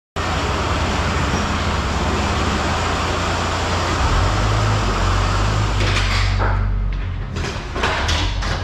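Heavy truck noise: a steady low rumble under a loud rush, starting abruptly. From about six seconds in the rush drops away and a string of sharp knocks and clatter follows.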